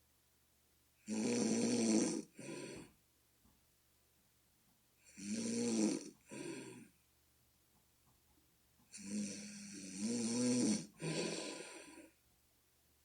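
A person snoring loudly, three snores about four seconds apart, each a long snore followed after a brief break by a shorter one; the snorer likens the sound to a bullfrog.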